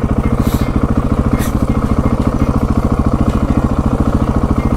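Husqvarna 701 Supermoto's single-cylinder engine running steadily at low revs near idle, an even rapid pulse that neither rises nor falls.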